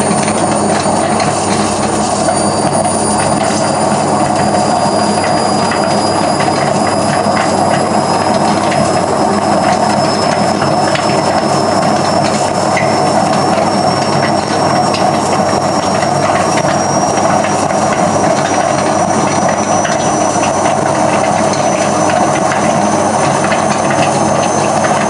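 Hotpoint Aquarius WMF520P washing machine running loudly, most likely on its spin, with a high whine that slowly rises in pitch. The noise comes from a bad drum spider.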